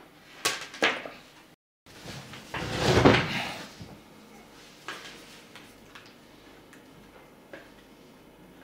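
Handling noise from a small plastic speaker and its cable on a tabletop. There are sharp clicks and knocks, and a louder scraping rustle that swells and fades about three seconds in, then a few faint taps.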